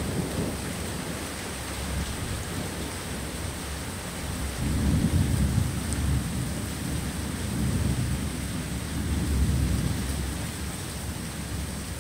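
Thunderstorm: steady rain hiss with a long, low rumble of thunder that swells about four seconds in, surges again later, and fades near the end.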